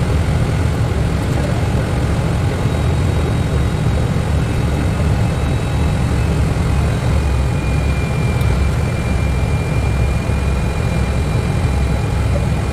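Steady cockpit noise of an Airbus A320 climbing out: a low rumble of engines and airflow, with a faint high whine held through part of it.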